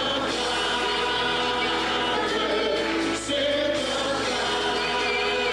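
Mixed choir of men and women singing, with a short break in the sound about three seconds in.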